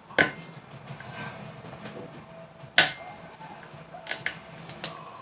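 A few sharp clicks and clacks of a Torx screwdriver and the trimmer's plastic parts being handled during disassembly. The loudest comes about three seconds in, with two close together near the four-second mark.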